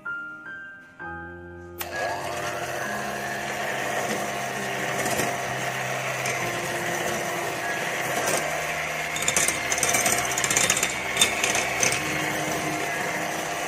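Soft piano music, then about two seconds in an electric hand mixer switches on and whirs steadily, its wire beaters whipping egg whites and sugar at low-to-medium speed, with some clattering near the end.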